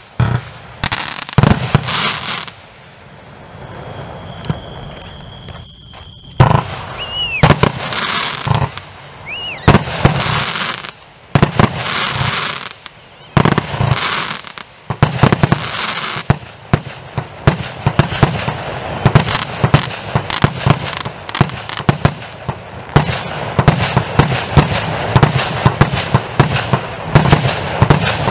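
240-shot compound firework cake firing: repeated sharp bangs of shells bursting, with crackling between them. The firing eases briefly a few seconds in, then comes back thicker, with rapid reports close together through the second half.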